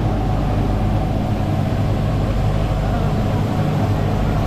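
Steady low mechanical drone with an even hum and no break or change, as from a locomotive's machinery running while the train stands.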